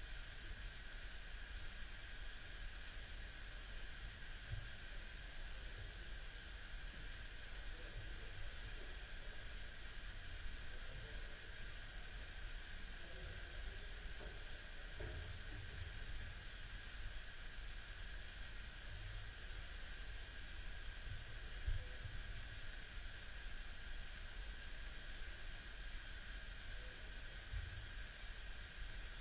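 Steady hiss of an artificial underwater leak picked up by a hydrophone, with a low rumble beneath and a few faint, irregular low knocks.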